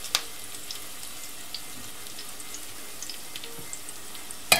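Mallow fritters sizzling in vegetable oil in a frying pan: a steady hiss with scattered small crackles. A spoon clicks lightly just after the start and more sharply near the end.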